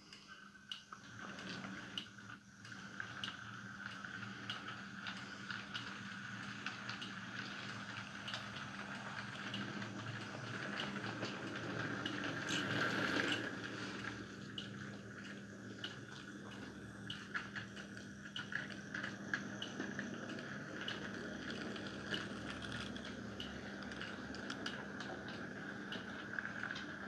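Model train running on a layout's track: a faint steady motor hum with light irregular clicking, swelling briefly about halfway through.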